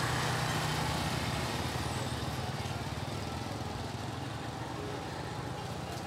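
Small vehicle engine idling steadily with a fast even pulse, slowly fading.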